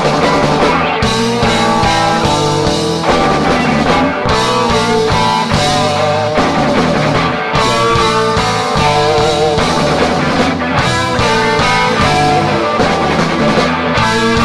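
Live rock band playing an instrumental stretch: guitar lines over bass and drums, loud and steady.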